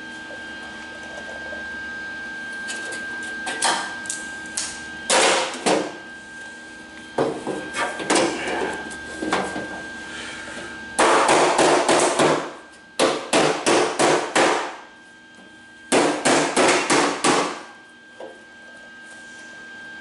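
Steel hammer striking the sheet-steel door skin of a 1974½ MGB door in bursts of quick metallic blows, about four to six a second, with short pauses between the bursts, as the freshly welded skin edge is knocked down onto the door frame.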